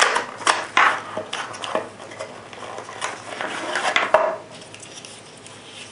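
Cardboard cartridge box being opened and two plastic trays of brass 7.62x39 cartridges slid out of it: rustling cardboard and a run of sharp clicks and rattles, dying down after about four seconds.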